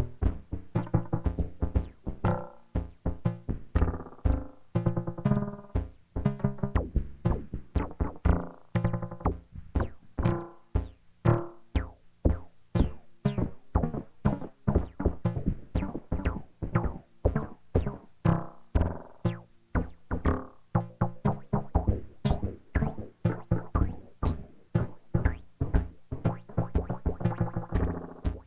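Behringer Neutron analog synthesizer playing a fast, steady sequence of short plucked notes.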